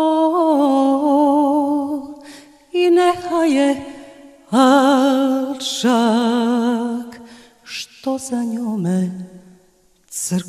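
A solo voice singing slowly and unaccompanied: long held notes with wide vibrato and ornamented turns, in several phrases broken by short pauses, the line sinking lower near the end.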